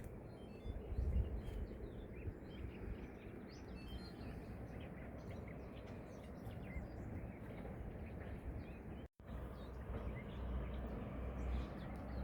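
Small birds chirping in short, scattered calls over steady outdoor background noise with a low rumble. The sound cuts out for an instant about nine seconds in.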